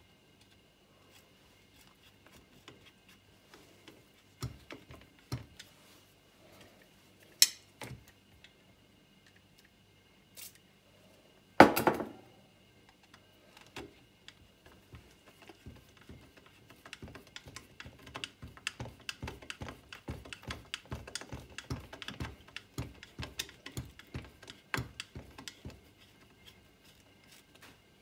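Hand work with a screwdriver on a radiator's plastic shroud: scattered clicks and knocks, one loud knock with a brief ring about twelve seconds in, then a long run of rapid, irregular clicking near the end as a screw is driven home.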